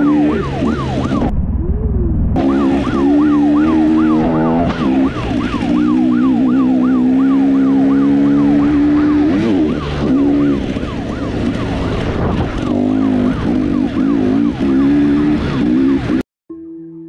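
Police siren on a fast yelp, its pitch sweeping quickly up and down about three times a second, over a running engine and road noise. It cuts off abruptly near the end.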